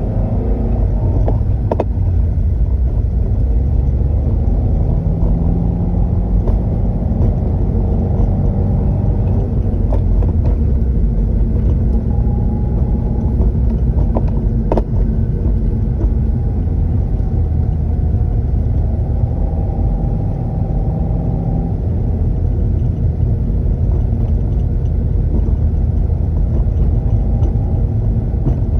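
Car engine and drivetrain running with a steady low rumble, broken by a few sharp knocks: the clutch clunk that persists despite a new clutch kit, release bearing, clutch fork and release arm.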